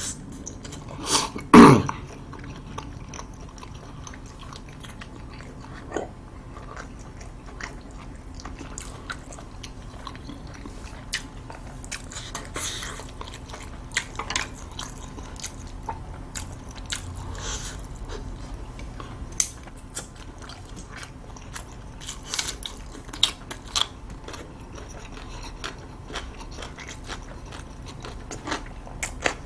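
Close-miked chewing of a mouthful of dumpling and instant noodles, with scattered irregular wet mouth clicks and smacks. A brief louder throat or voice sound comes about a second and a half in.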